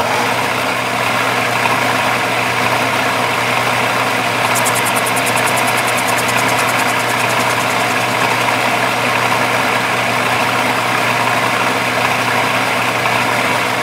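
Metal lathe running under power while facing the end of a brass bar, its motor and gear train giving a steady, loud hum. A fine, rapid high ticking joins in about four and a half seconds in.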